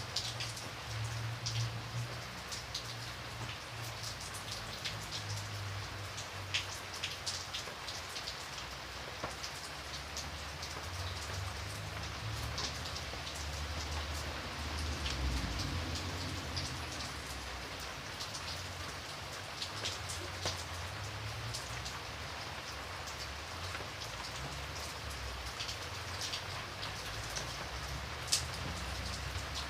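Light rain falling steadily in a forest, with many scattered drops tapping sharply against a soft hiss of rainfall. A steady low rumble runs underneath.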